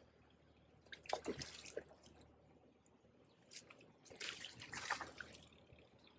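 Water splashing in two short bursts, about a second in and again from about four seconds in, as a hooked barbel is drawn over a landing net at the water's surface.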